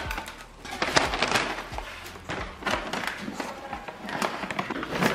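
Handling noise from a wet-dry shop vacuum as its paper dust bag is worked out: irregular knocks and clatter with rustling paper.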